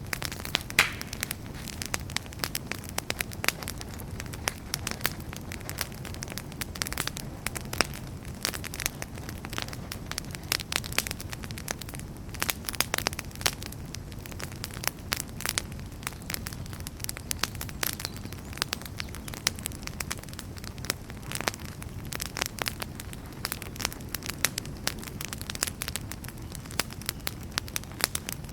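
Campfire crackling, with frequent irregular sharp pops and snaps over a steady low rush of the burning fire.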